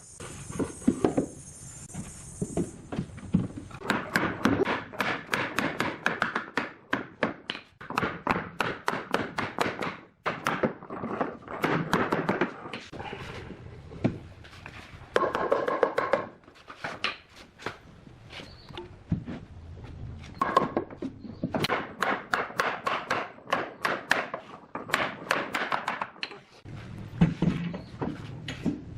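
A rapid, uneven series of sharp knocks and taps on wood from hand woodworking, several a second, in clusters with short pauses between.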